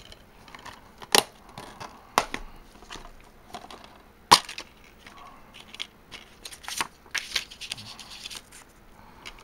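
Plastic DVD keep cases being handled: several sharp plastic clicks and snaps as cases are closed and opened, the loudest about four seconds in. Near the end comes a quicker run of clicking and rustling of the open case and its paper insert.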